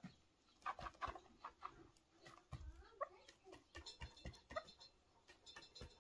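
Chukar partridge giving soft, short clucking notes, mixed with scattered light ticks and scratches from the bird working the loose dry soil.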